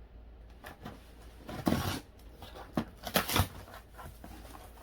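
Scissors cutting into the packing tape of a shipping package, with handling noise, in a few short bursts; the loudest come about one and a half to two seconds in and again around three seconds.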